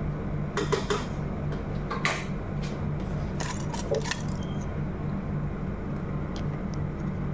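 Stainless steel cookware clinking and clattering a few times as it is handled, the loudest clatter about two seconds in, over a steady low hum.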